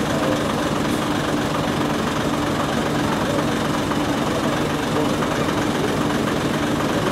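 Heavy diesel vehicle engine idling steadily: an even, low drone.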